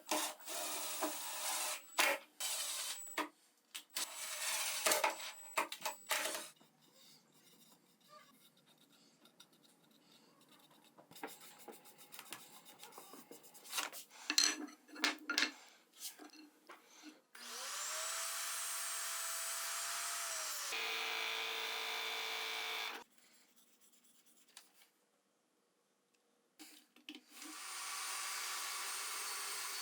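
Woodworking sounds: a run of knocks and rubbing of wooden pieces being handled and worked, then a small electric power tool running steadily for a few seconds, starting with a rising whine. A similar steady motor sound starts again near the end.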